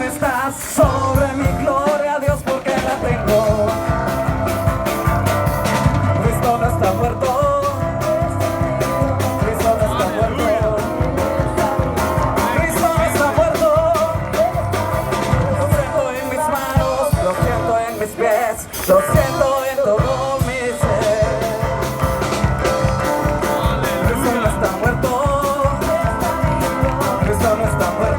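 Upbeat music with a steady drum beat and a singing voice.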